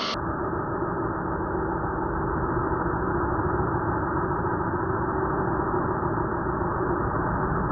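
Interskol USHMV-230/3500 230 mm brushless angle grinder grinding metal, its sound slowed down and pitched down into a steady, deep, muffled drone.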